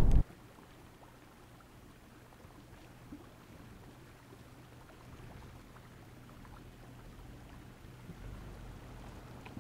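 Faint creek water running over rocks, with a Jeep Wrangler's engine running low and steady as it crawls through the shallow creek, growing a little louder near the end as it comes closer. A loud low rumble cuts off abruptly at the very start.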